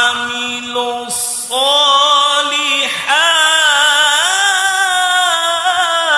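A single voice chanting Quran recitation in a melodic, drawn-out style, holding long notes that waver and glide between pitches, with brief breaths between phrases.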